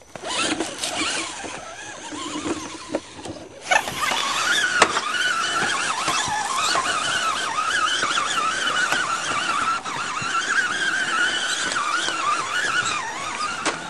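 Electric motor and gear whine of a radio-controlled scale rock-crawler truck working over rocks, its pitch rising and falling with the throttle. For the first few seconds it is quieter and mixed with a few clicks, then it comes in louder and steadier about four seconds in.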